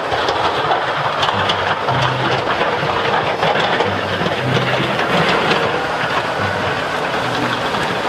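Wheel loader fitted with a front snow plow blade, its diesel engine running as the blade pushes and scrapes through snow: a steady, loud rushing and scraping noise.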